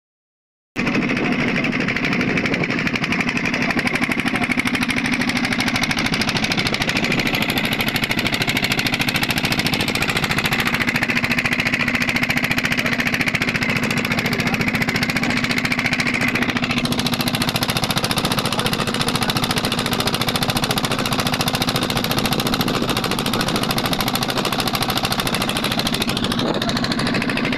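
A wooden fishing boat's inboard engine running steadily under way, heard on board, with a fast even beat.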